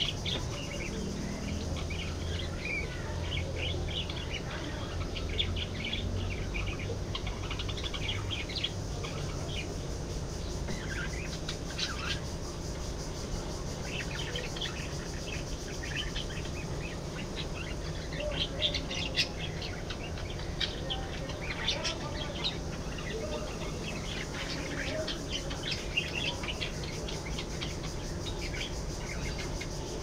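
A flock of budgerigars chattering: many short, overlapping chirps throughout, over a steady low hum.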